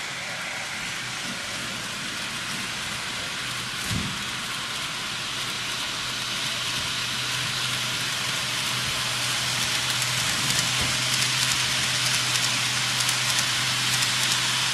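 N-scale model freight train running on the track toward the microphone: a dense, rain-like rushing hiss of wheels on rail growing steadily louder as it approaches. A low steady hum joins in about four seconds in, with a soft knock at the same moment.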